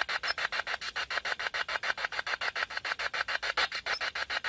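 Handheld ghost-hunting spirit box sweeping rapidly through radio frequencies: a steady chopping of static at about ten bursts a second.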